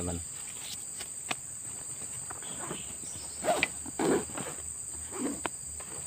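Steady high-pitched drone of insects in tropical undergrowth, with a few brief louder sounds about three and a half to five seconds in.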